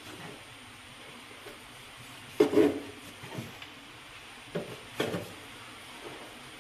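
Kitchen knife cutting through a whole chicken on a plastic cutting board: a few knocks of the blade and carcass against the board, loudest about two and a half seconds in, with two more around the five-second mark, over a steady low hiss.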